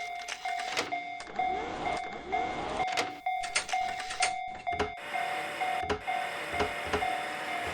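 Japanese level-crossing warning bell ringing its repeated 'kan-kan' dings, about two or three a second, as a sound effect. Sharp clicks and knocks are mixed in, with a couple of short swooping tones about two seconds in.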